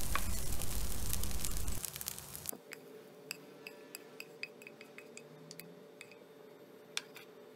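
Fried rice sizzling in a pan as a wooden spatula stirs it, cutting off about two seconds in. After that, quiet light clinks and scrapes of the wooden spatula against the ceramic pan and bowl as the rice is scooped out.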